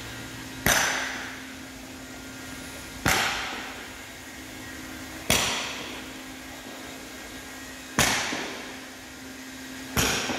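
Five sharp hammer blows at even intervals of about two and a half seconds. Each blow rings on and dies away over about a second in a large echoing room.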